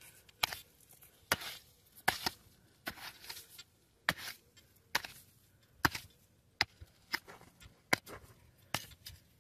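Hand digger being driven into hard, dry clay soil, striking about once a second. Each sharp strike trails off in a short scrape of dirt.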